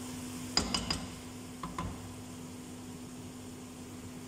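Aluminium cooking pot clinking as the spatula knocks against it: three quick light metallic knocks about half a second in and one more near two seconds, over a steady low hum and faint sizzling from the pot of frying fish.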